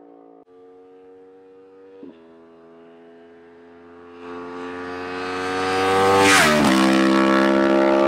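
2024 Yamaha R1's crossplane inline-four through an open titanium Akrapovic Racing Line exhaust with no dB killer, approaching at steady revs from a distance and growing louder. It passes about six seconds in with a quick drop in pitch, then stays loud as it pulls away.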